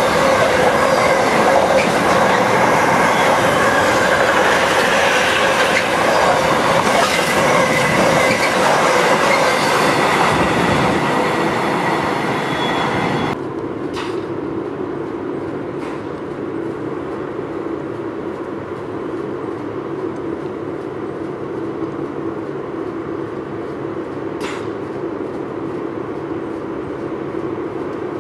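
Container freight train wagons rolling past at speed: a loud rush of wheel and rail noise with steady squealing tones. About halfway through it cuts off abruptly, leaving a quieter steady hum as a Class 350 electric multiple unit approaches, with a few sharp clicks.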